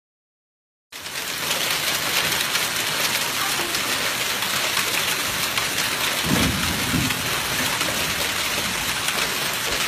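Heavy storm downpour pelting the ground, a loud, steady hiss that cuts in suddenly about a second in. A brief low rumble comes about six to seven seconds in.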